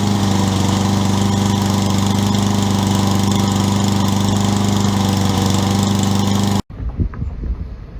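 Honda engine of a Toro self-propelled walk-behind lawn mower running at a steady speed. It cuts off suddenly near the end, giving way to wind on the microphone.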